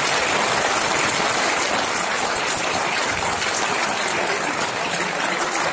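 Audience applauding loudly and steadily, a dense crowd of clapping hands.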